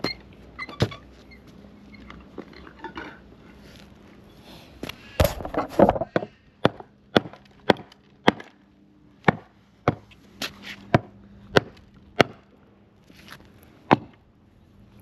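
A run of sharp knocks, roughly two a second, from about six to twelve seconds in, with a louder cluster just before and a few scattered knocks at either end.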